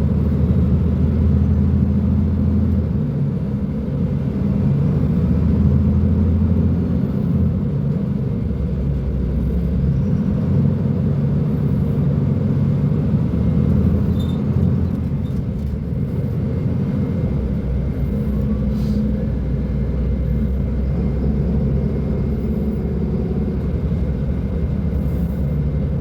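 Mercedes-Benz O500U city bus diesel engine running under way through a Voith automatic gearbox, a steady low drone whose pitch shifts up and down several times as the bus pulls and the gearbox changes.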